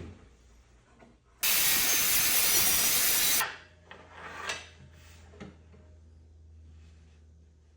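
Power saw cutting a drawer-side board to length: a loud, even cut of about two seconds that starts and stops abruptly, followed by a few light knocks.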